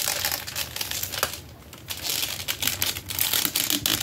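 Plastic clicking and crinkling of a large Marvel Universe Masterworks Sentinel action figure being handled and posed, its parts knocking and rubbing, with a short lull about one and a half seconds in.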